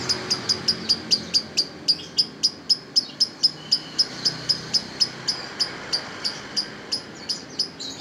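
Caged lovebird in a long unbroken run of shrill, sharp repeated chirps, about four a second, spacing out slightly near the end. This is the sustained chattering song that lovebird keepers call "ngekek".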